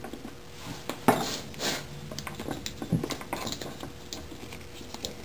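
Hard plastic clicks and knocks from a large Master Chief action figure being handled and stood up on a wooden tabletop, with the loudest knock about a second in and a run of small ticks in the middle.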